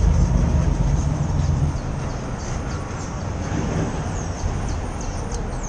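Low rumble of passing street traffic that fades out after about a second and a half, leaving a steady street background with repeated short high chirps over it.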